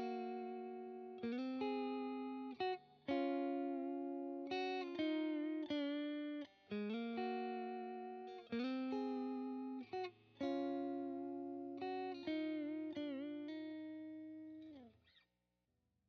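Electric guitar with single-coil pickups played through a clean tone: about a dozen chords and notes, each struck and left to ring out and fade. A few notes waver in pitch with vibrato. The playing stops about a second before the end.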